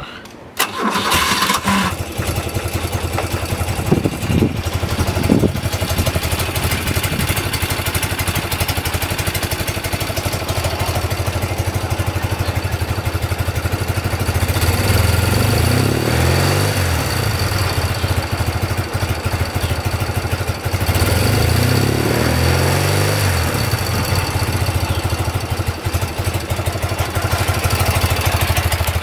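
1978 BMW R100S's air-cooled flat-twin boxer engine starting less than a second in, then idling steadily. The revs are blipped up and let fall back around fifteen seconds in and again around twenty-one seconds in.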